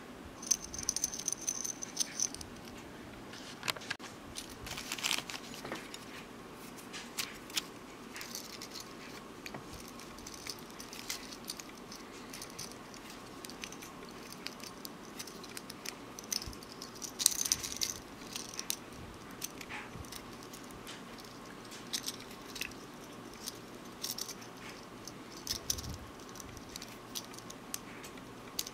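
Small metal split rings and bottle caps clinking and rattling as they are handled and worked with split-ring pliers: a scatter of light metallic clicks and tinkles, with brief ringing jingles near the start and again about two-thirds of the way through.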